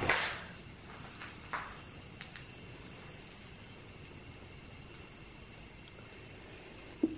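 Steady, high-pitched chorus of crickets chirring. A brief rustle comes at the start, and a few faint ticks follow in the first couple of seconds.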